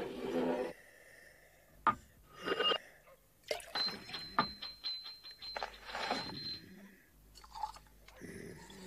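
Glass vials clinking and rattling as they are handled in a drawer: a run of small sharp clinks. A high bell-like ringing tone is held from about three and a half to six and a half seconds in.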